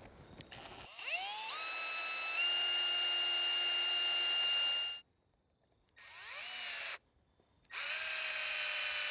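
Cordless drill whining as it spins up and bores a pilot hole into a lamppost's support bracket, pitch rising before it holds steady for a few seconds. Then come a short run with rising pitch and a longer steady run as the drill drives a screw into the bracket.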